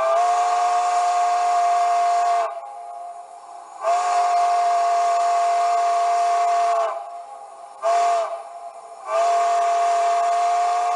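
Steam locomotive quill whistle played by a TCS WOW sound decoder in a model locomotive: four blasts, long, long, short, long, the grade-crossing signal. Each blast is a steady chord and trails off in an echo.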